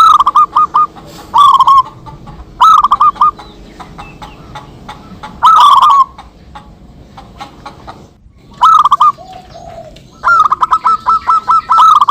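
Zebra doves (perkutut) cooing, several birds answering one another. Short phrases of quick high coos repeat every second or two, with a lower coo about nine seconds in and a long run of rapid coos near the end.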